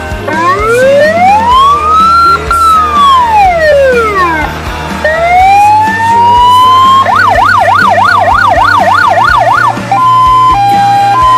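Fire truck's electronic siren run through its tones: one slow wail rising and falling, a rising whine, a fast yelp of about three sweeps a second, then a hi-lo two-tone alternating about every half second near the end. Background music with a steady beat plays underneath.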